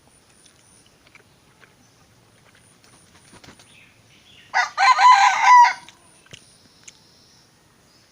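A rooster crowing once, loud and a little over a second long, about halfway through.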